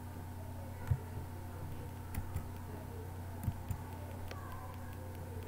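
A few scattered computer keyboard keystrokes, about five soft clicks, over a steady low electrical hum.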